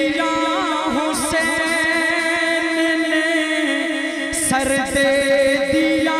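A man singing a naat a cappella into a microphone, drawing out a long, wavering, ornamented melodic phrase between the lines of the verse.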